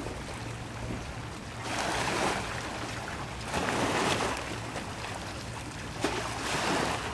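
Sea water washing and sloshing against a floating plastic pontoon, swelling up three times about two seconds apart, over a steady low rumble.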